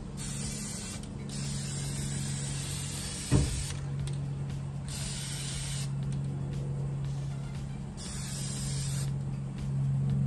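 Aerosol can of triple thick crystal clear glaze spraying in several hisses of one to three seconds each, with short breaks between. A steady low hum runs underneath, and a single sharp knock comes a little over three seconds in.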